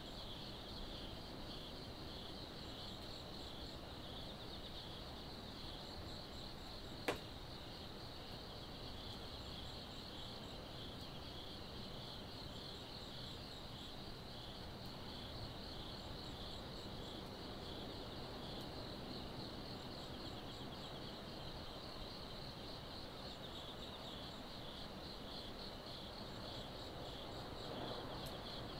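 Insects chirping in a steady, rapidly pulsing trill over a low background hum. One sharp click about seven seconds in.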